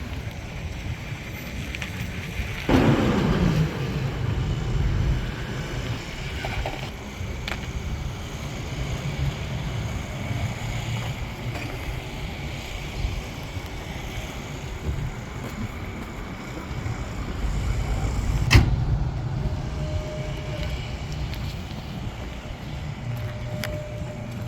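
A 2019 Ford F-250's diesel engine runs with a steady low rumble. About three seconds in, a louder sound slides down in pitch, and about eighteen seconds in there is a sharp knock.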